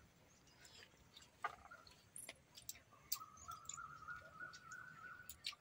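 Near quiet: faint scattered clicks and smacks of people eating rice and vegetables by hand from banana leaves. About three seconds in, a faint high, slightly wavering tone starts and holds for about two seconds.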